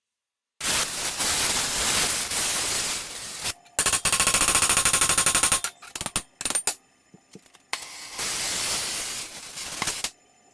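Oxy-fuel torch gouging a crack out of thick steel: a steady rushing hiss. In the middle the hiss gives way to about two seconds of a fast, even rattle and a few sharp clicks, then it comes back.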